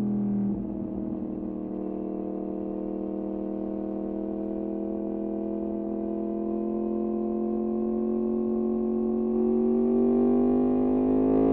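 Yamaha MT-10's crossplane inline-four running through an Austin Racing aftermarket exhaust, with a deep, steady drone. The pitch dips slightly about half a second in, then rises slowly and steadily as the engine pulls up through the revs, climbing faster and louder near the end.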